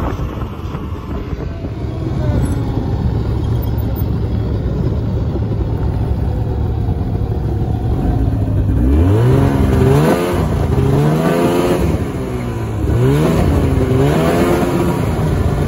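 Snowmobile engine running under way, a steady loud drone; from about halfway through its pitch rises and falls about four times as the throttle is opened and eased.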